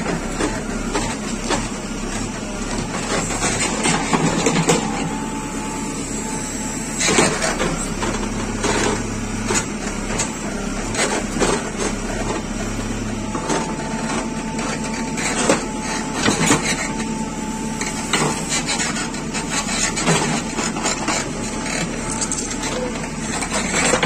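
JCB 3CX backhoe's diesel engine running steadily while its steel bucket digs stony soil, with frequent scrapes and knocks of rocks against the bucket. A thin steady whine comes in twice, around the quarter mark and again past the middle.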